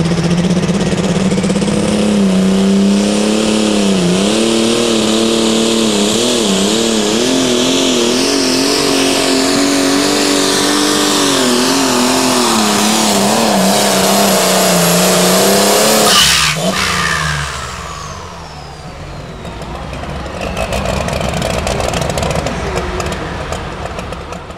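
Case IH super stock pulling tractor's turbocharged diesel engine running flat out under load, its pitch wavering up and down as it pulls the sled. About 16 seconds in the engine backs off abruptly, and a high whine falls away slowly over the next several seconds as the turbo spools down.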